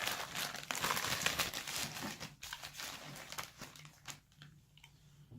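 Packaging crinkling and rustling as it is handled, densest in the first two seconds or so, then dying down to a few scattered light clicks and rustles.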